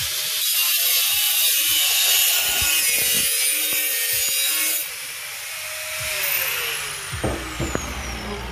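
Angle grinder with a cut-off wheel cutting through a steel exhaust pipe bend, a loud hissing screech. About five seconds in the cut eases off, and the grinder winds down with a falling whine, followed by a few knocks as it is set down.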